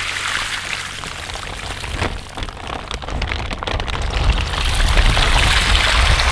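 Water pouring out of a plastic bag of live crawfish through a mesh landing net and splashing onto grass. The pour grows heavier about four and a half seconds in.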